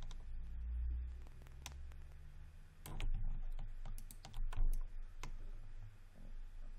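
Scattered, irregular clicks from a computer mouse and keyboard as mesh edges are selected one by one in 3D modeling software, over a low steady hum.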